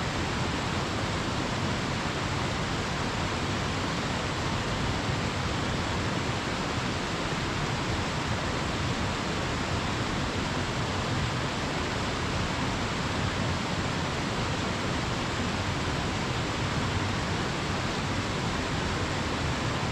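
Waterfall pouring steadily: a dense, unchanging rush of water.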